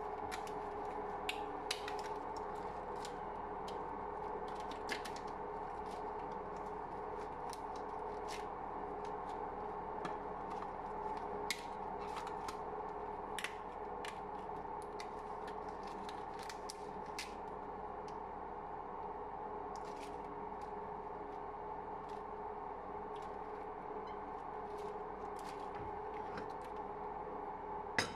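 Black rubber gloves being pulled on over latex gloves and worked onto the fingers: scattered sharp snaps and clicks of the rubber over a steady hum.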